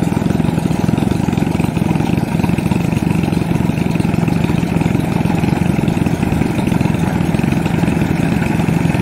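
Rice combine harvester running steadily as it harvests, with its engine giving an even hum that does not change.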